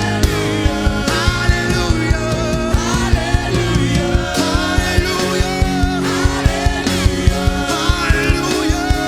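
Church worship song: a voice singing over a band, with held chords and a steady drum beat.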